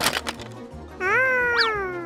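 A squeaky cartoon character voice holds a drawn-out, meow-like vowel that rises slightly and then falls in pitch, with a quick whistle-like zip up and back down in the middle. A short click comes right at the start, over children's background music.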